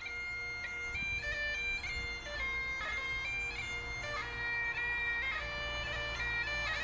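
Bagpipes playing a tune over a steady drone, the melody stepping from note to note with quick grace-note flicks between them.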